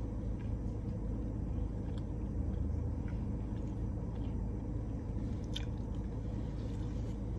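Chewing food close to the microphone, with a few faint crisp bites, over a steady low rumble of a car's interior.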